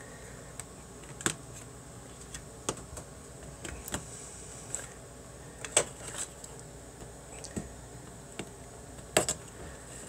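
A knife blade prying and scraping at the hub of a plastic computer cooling fan, making irregular small clicks and snaps, with three louder snaps about a second in, midway and near the end, as the blade works at a fan that may be one of those that can't be taken apart.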